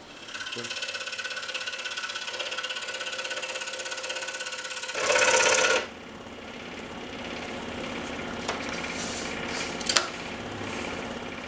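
Scroll saw running, its blade stroking up and down rapidly as it cuts a stack of three 1/8-inch basswood layers, a steady buzz. About five seconds in it turns louder and harsher for under a second, and there is a sharp click near ten seconds.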